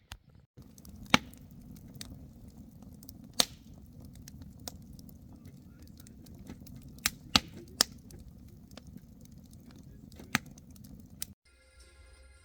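Campfire burning with a steady low rumble and sharp, irregular pops and cracks, several of them loud. It cuts off abruptly near the end.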